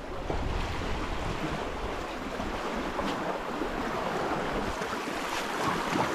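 Small sea waves washing and splashing over a rocky reef shore, a steady rush of water, with some wind on the microphone.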